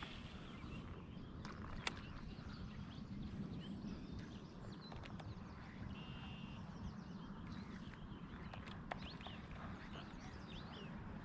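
Faint birdsong of many short chirps and whistles, including one held whistle about six seconds in, over a low steady rumble, with a few light knocks.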